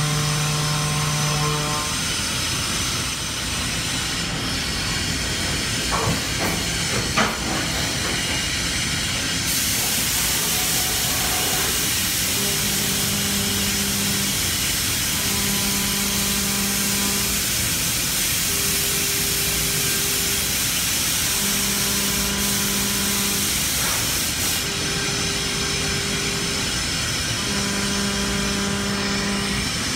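Fryer MC-45 CNC vertical machining center running a cut with coolant: a steady hiss of spray and cutting noise, with a low hum that comes on in stretches of a second or two about every three seconds in the second half. Two sharp clicks about six and seven seconds in.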